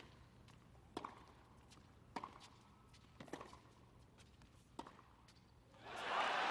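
Tennis ball struck back and forth in a rally, with a sharp racket hit about every second. Near the end, crowd applause breaks out as the point is won.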